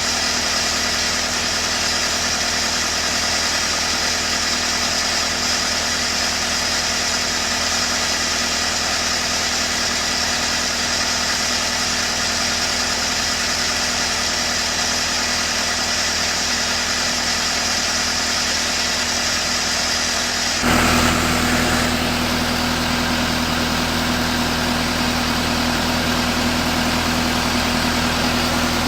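Lincoln SAM 400 welder's engine running steadily. About three-quarters of the way through, the engine note changes suddenly and a steady low hum comes up more strongly.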